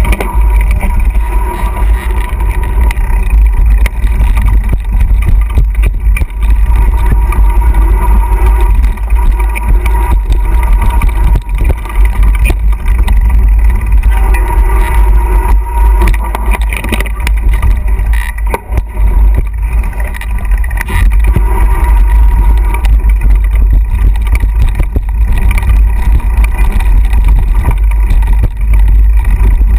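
Loud, steady wind rumble buffeting an action camera's microphone as a mountain bike descends a dirt singletrack, with scattered knocks and rattles from the bike going over bumps.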